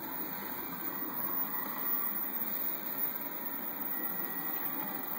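Steady mechanical whir and hum of a powered-up delta 3D printer, with a faint steady whine above it.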